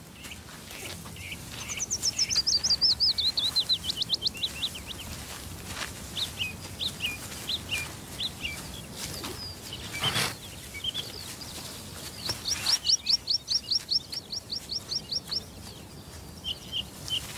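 A small songbird singing: a fast trill that falls steadily in pitch, scattered short chirps, then a second fast trill held at one pitch.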